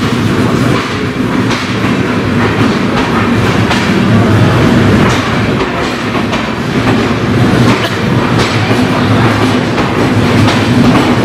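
Indian Railways passenger train of LHB coaches rolling along a station platform: a steady rumble of wheels on rail, with clacks every second or two as the wheels cross rail joints.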